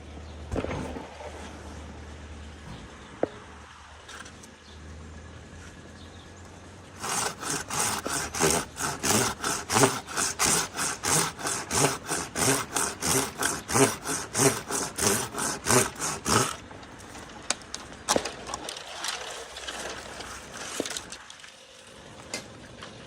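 Hand saw cutting through dead aspen wood in quick back-and-forth strokes, about three a second. The sawing starts about seven seconds in and stops about ten seconds later.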